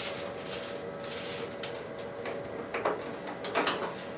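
Transfer film spools being lifted out of a card printer by hand: a few short plastic clicks and film rustles, the loudest two near the end, over a steady faint hum.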